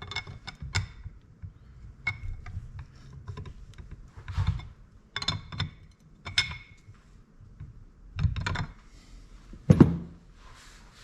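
Metal parts and tools being handled while working on a differential: irregular clinks and knocks, several with a short metallic ring. The loudest knock comes near the end.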